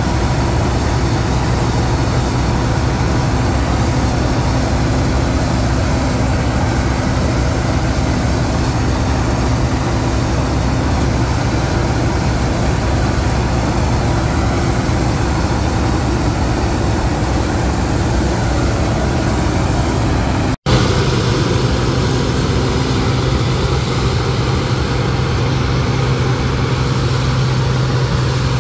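Combine harvester running steadily: a continuous diesel engine and machinery drone with a low hum. About two-thirds of the way through the sound cuts out for an instant, then the drone resumes with a stronger low hum.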